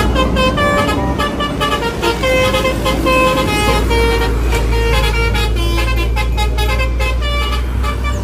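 Telolet horn on a large vehicle playing a quick run of short musical notes at changing pitches, over the steady low rumble of the engine.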